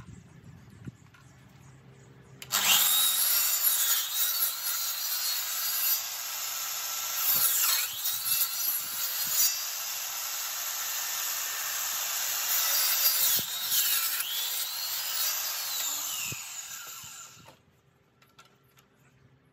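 DeWalt sliding mitre saw running and cutting into a 6x6 timber post, making the depth-limited cuts for a half lap joint. It starts suddenly about two and a half seconds in, goes on for about fifteen seconds, then winds down and stops a couple of seconds before the end.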